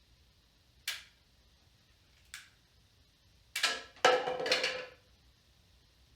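Wooden break-action rubber band revolver being worked: two single sharp snaps about a second and a half apart, then a rapid clatter of clicks and snaps lasting just over a second.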